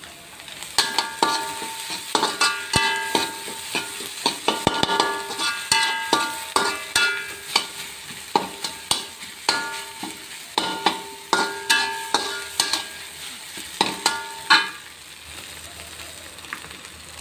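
Metal spatula scraping and knocking against a wok in quick strokes, each ringing briefly, while sardine and egg filling is stir-fried over a faint sizzle. The strokes stop shortly before the end, leaving only the sizzle.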